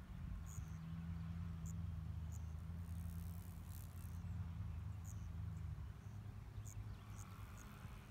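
Outdoor ambience: a steady low hum that stops about six seconds in, under short high chirps of insects repeating every half second or so.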